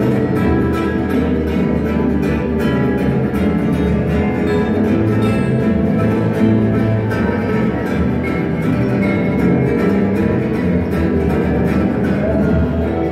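Gypsy jazz acoustic guitars playing a musette waltz live, with quick plucked lead lines over the accompaniment.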